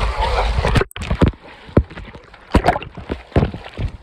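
Pool water splashing right at a phone's microphone held at the water surface: a dense splashing rush for about the first second that cuts out suddenly, then irregular slaps and sloshes of water against the phone.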